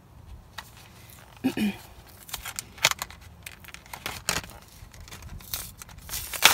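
A JB Weld MirrorWeld kit's cardboard-backed plastic blister pack being pried and torn open by hand, with irregular crinkling, crackling and sharp clicks of plastic and card.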